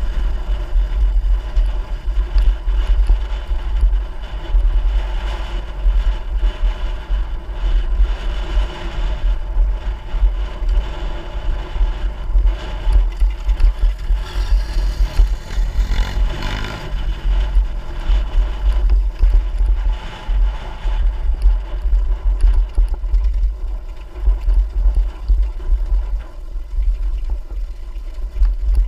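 Trail dirt bike's engine running while riding over rough ground, its pitch rising and falling, under a heavy, unsteady low rumble.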